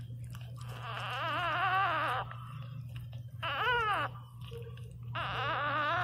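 Newborn Pinscher puppy crying: three high-pitched whining squeals, the first long and wavering, the second short and falling, over a steady low hum.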